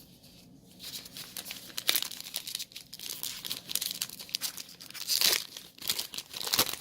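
A foil Yu-Gi-Oh Metal Raiders booster pack wrapper being handled and torn open by hand, with irregular crackles starting about a second in and loudest about two and five seconds in.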